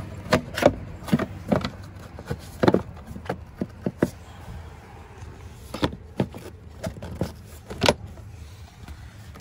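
Plastic engine air-box cover being pressed and snapped back into place over a new air filter, giving a run of irregular sharp clicks and knocks, about fifteen in all.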